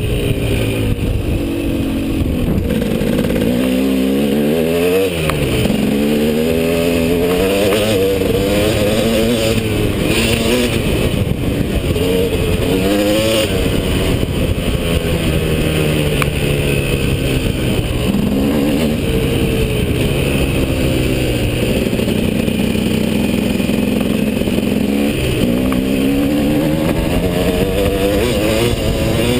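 KTM 250 SX two-stroke single-cylinder motocross engine under way, its pitch climbing and falling repeatedly as the throttle is opened and closed.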